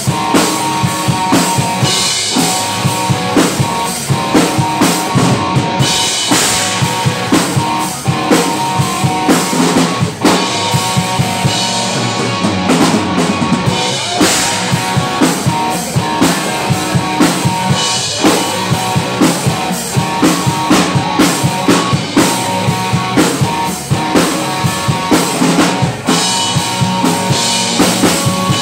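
Live rock band playing loud: a drum kit keeping a steady beat under electric bass and electric guitar.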